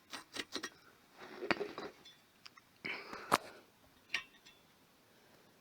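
Metal parts of a stripped microwave clicking, clinking and scraping as a magnet is worked loose and pried off by hand. There are quick clicks at first, then two short scraping rattles, each ending in a sharp click, and a last click before it goes quiet.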